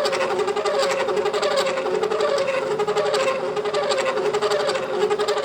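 Kearney & Trecker horizontal milling machine cutting a key slot into a ball valve's ball under power feed: a steady, wavering machine hum with a dense rapid ticking from the cutter, the chatter of the cut.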